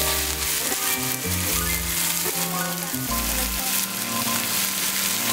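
Chopped garlic and onion sizzling in a hot non-stick frying pan while tomato sauce is stirred in with a wooden spatula. Background music plays underneath.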